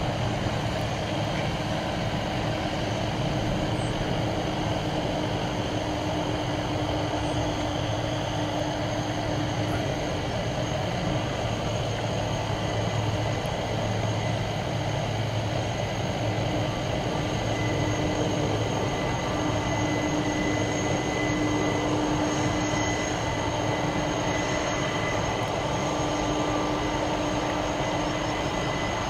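Boeing 747-400 freighter's four turbofan engines running at taxi power as the jet rolls slowly along: a steady rumble with a high, even whine over it.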